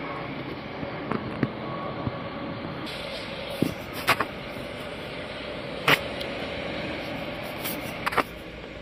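Diesel engine of a Setra S 417 UL three-axle coach running steadily as the coach pulls away, with a few sharp clicks over it.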